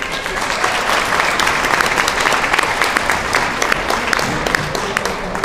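Audience applauding in a hall, a dense clapping that is loudest in the first couple of seconds and thins out toward the end.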